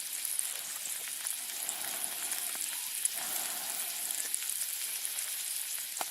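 Food sizzling in a hot pan: a steady hiss with scattered small crackles.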